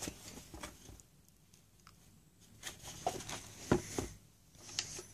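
Faint handling noise: scattered soft rustles and light taps, with a quiet stretch between about one and two and a half seconds and a cluster of taps in the second half.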